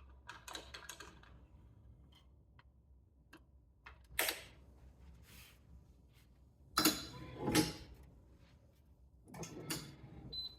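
Handling noises from restringing a badminton racquet: scattered light clicks and several short scraping swishes, the loudest pair about seven seconds in, as the string and racquet are worked.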